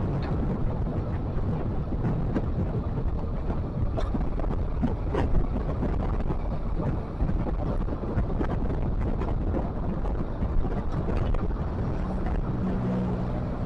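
Wind buffeting the microphone over a steady low vehicle rumble, with a brief low hum near the end.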